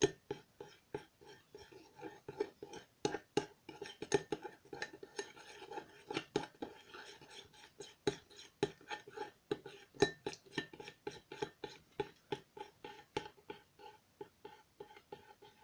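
A spoon stirring white glue in a cut-glass bowl, tapping and scraping against the glass in a quick, uneven run of clinks, several a second.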